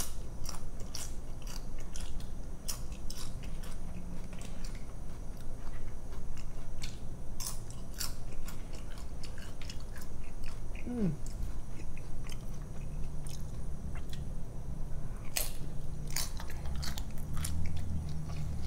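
Close-miked chewing and crunching of queso-covered tortilla chips, an irregular string of sharp crunches.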